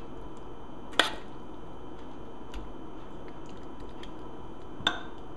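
A metal spoon clinks against a ceramic bowl twice, about a second in and again near the end, with a few faint ticks between as filling is spooned into the bowl.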